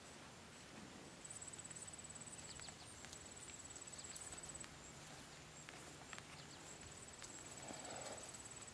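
A faint outdoor background of insects: a high, thin chirring trill that comes in repeated runs of about a second and a half each. A few faint ticks fall in between.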